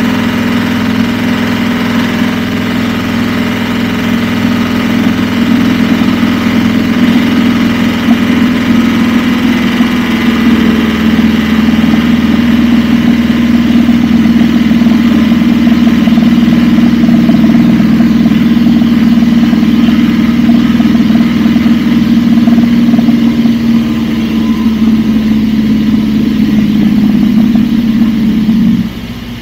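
Scheibe SF-25C Falke motor glider's engine and propeller running steadily in cruise flight, heard from inside the cockpit as a loud, even drone. Near the end the sound drops sharply.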